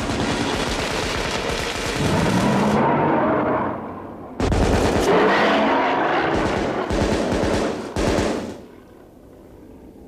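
Rapid, sustained rifle fire: many shots in close succession in two volleys, with a short break about four seconds in. A pitched bellow, the dinosaur roaring, rises over the shooting. The firing stops about a second and a half before the end.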